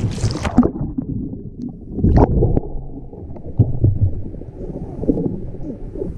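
Water splashing sharply as a kayak rolls, then dull, muffled sloshing and gurgling of water, with a second brief splash about two seconds in.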